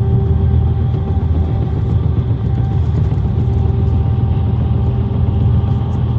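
Motor vehicle engine running steadily: a continuous low drone with a steady hum over it.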